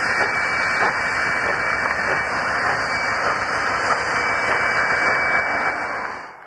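Steam locomotive letting off steam with a loud, steady hiss, mixed with the wheels of a container freight train running past close by, a thin high tone held over the noise. The sound drops away abruptly near the end.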